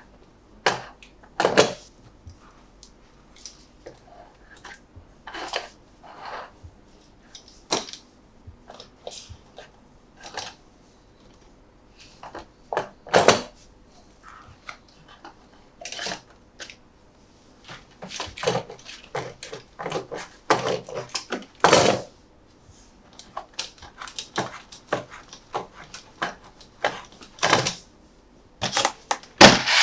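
Irregular small taps, clicks and short rustles from a plastic toy monster truck and its packaging being handled, coming more often in the second half, with louder rubbing starting right at the end.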